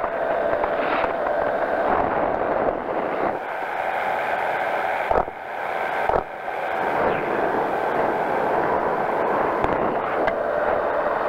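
Powered parachute's engine and propeller running steadily in flight, with wind rushing over the microphone. Two short knocks near the middle, each followed by a brief dip.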